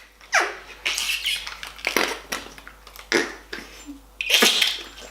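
Toilet slime (noise putty) pressed into its pot, making a series of short fart sounds, about five, with the longest and loudest one near the end.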